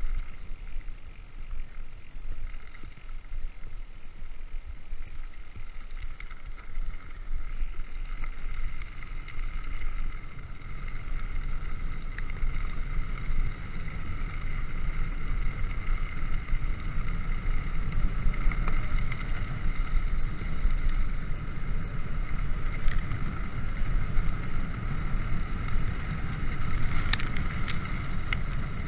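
Mountain bike rolling fast over a muddy dirt trail: wind buffeting the microphone and tyres rumbling over the ground, growing stronger about halfway through. A steady high whine runs under it, and a few sharp clicks come near the end.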